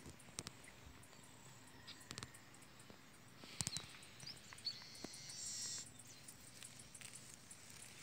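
Faint outdoor ambience among grass: light rustles and clicks, with a brief high chirp and a short, buzzy high trill about five seconds in.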